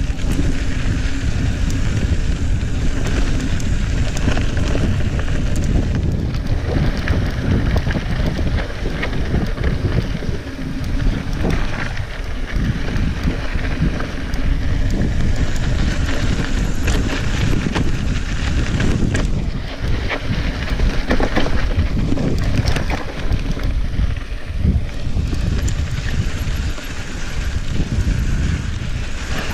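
Wind buffeting an action camera's microphone as a mountain bike rides downhill on a dry dirt and gravel trail, with tyres crunching and frequent clicks and knocks from the bike rattling over bumps.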